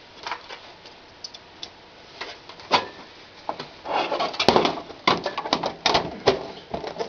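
Desktop PC case side panel being fitted back on: irregular clicks, knocks and scraping, busiest in the second half.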